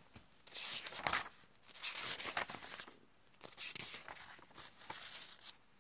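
Paper sheets rustling and crinkling in several short irregular bursts as handwritten note pages are handled and turned.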